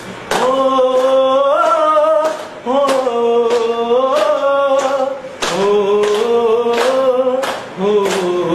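A man singing unaccompanied in long, drawn-out, wavering notes, with others clapping along in time, about two claps a second.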